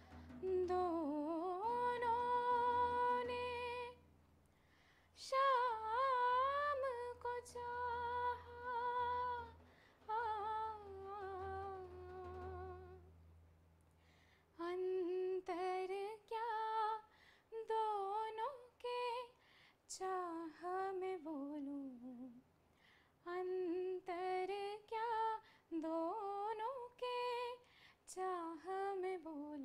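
A woman humming and singing the slow opening of a Hindi devotional film song. First come long, held, wavering notes over a low steady drone; from about halfway the phrases turn shorter and more broken and the drone stops.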